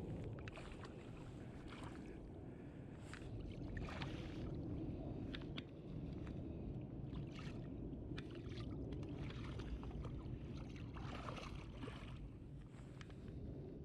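Creek water rushing steadily, with scattered sharp clicks and knocks over it.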